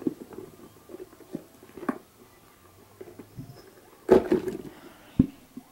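Handling noises as a latex mask is worked free of a plaster mold: scattered soft knocks and rubbing, a louder scuffing burst about four seconds in, and a sharp knock just after five seconds.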